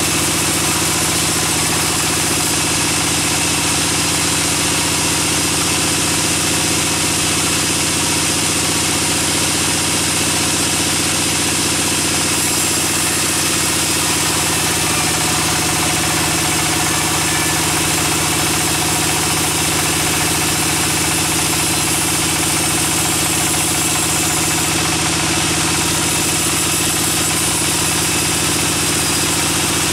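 Sawmill band saw running steadily as its blade rips lengthwise through a pine log: a continuous, unbroken machine hum with the noise of the cut over it.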